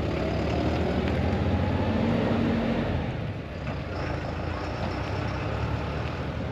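Motorhome engine running under way, with road noise; the engine note rises a little in the first seconds.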